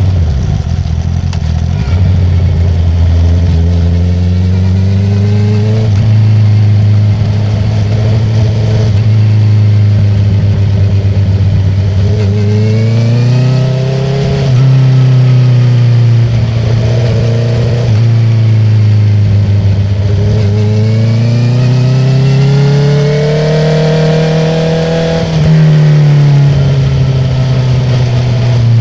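2019 Honda CB650R's inline-four engine through an Akrapovic full titanium exhaust with the dB killer removed, under way. The exhaust note climbs under throttle and drops back off throttle several times, with long pulls about halfway through and again near the end.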